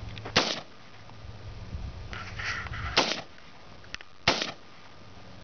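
Rifle fired three times: one shot about half a second in, then two more about three and four seconds in.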